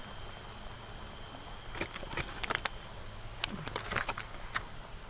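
Aluminum foil crinkling as it is folded over food on a grill, in quick irregular crackles from about two seconds in.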